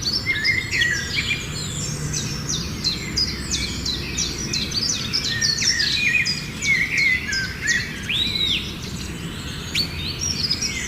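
Several birds singing and calling at once: many short, sharp chirps and quick whistled notes overlapping, over a low steady background rumble.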